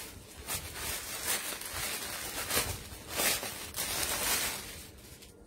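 Rustling and crinkling as hijabs are handled and sorted, with several louder crinkles through the middle, fading out near the end.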